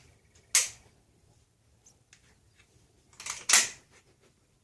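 Sharp metallic clicks and clacks from an Escort Magnum 12-gauge semi-automatic shotgun's action: one click about half a second in, then a quick double clack a little after three seconds, as the gun fails to fire and is worked again. The repeated failures to fire are blamed by the owner on a newly installed O-ring.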